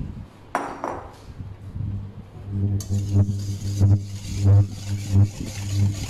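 Wire whisk beating melting butter and cream in a stainless steel bowl over a bain-marie, rhythmic strokes against the bowl about every two-thirds of a second, over a steady low hum. A brief clatter about half a second in.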